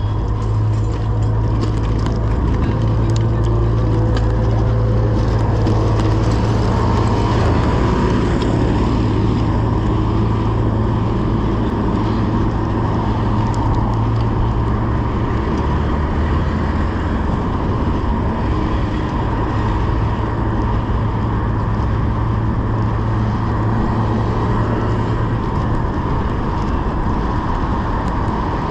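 Steady wind and road noise from riding a bicycle in city traffic, with a low steady hum that fades out near the end.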